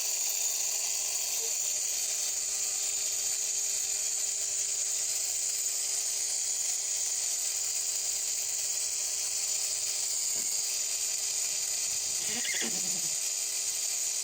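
Cordless mini angle grinder running steadily at full speed with a high-pitched whine, spinning free without cutting. It stops at the end.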